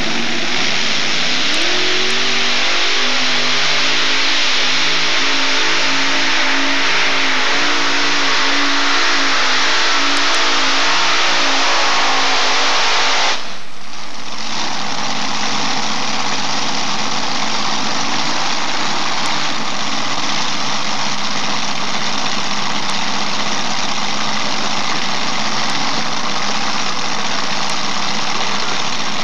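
Unlimited modified pulling tractor's engines running flat out during a pull, the pitch climbing in steps as the revs build. About 13 seconds in the sound breaks off sharply, then a steadier, lower engine note runs on.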